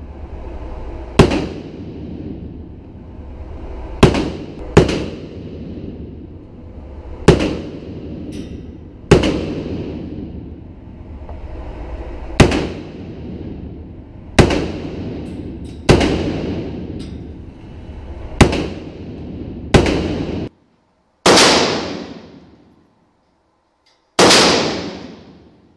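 AR-15 rifle fired single shots at a slow, uneven pace, about a dozen in all. Each sharp report is followed by a long echoing tail from the indoor range. In the last few seconds the sound drops out completely between shots.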